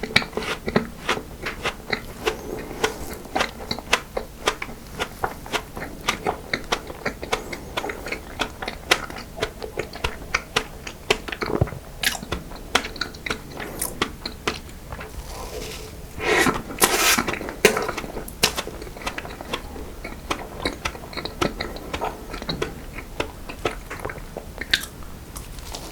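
Close-miked eating of cream cake and choux pastry: continuous chewing with many small wet smacks and bites and some crunching. A louder bite comes about two-thirds of the way through.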